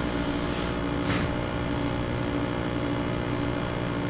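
Steady electrical hum over low room rumble, with a faint short hiss about a second in; no music comes through yet.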